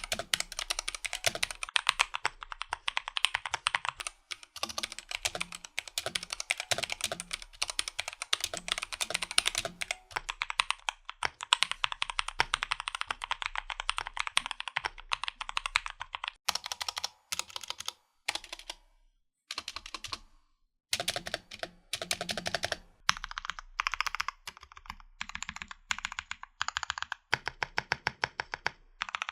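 Typing on a Womier 61 mechanical keyboard: fast, dense runs of key clacks, turning sparser with a couple of short pauses after the middle.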